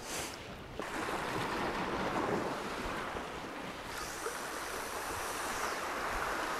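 Sea surf washing against a rocky shore, a steady noise of water, with wind on the microphone.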